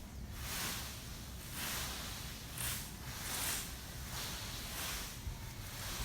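Repeated rustling swishes, about one a second.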